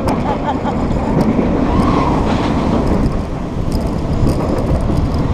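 Bolliger & Mabillard floorless steel roller coaster train running fast through its track elements: a steady roar of wheels on track mixed with heavy wind rushing over a front-seat microphone.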